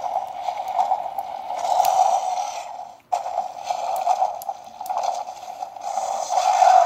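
Electronic dinosaur roar sound effects from a Jurassic World Sound Strike figure's small built-in speaker, tinny and harsh. One roar lasts about three seconds, breaks off, and a second starts right after.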